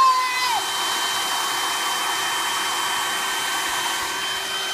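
Steady whooshing blower-like noise from a small electric motor, with a faint steady whine over it.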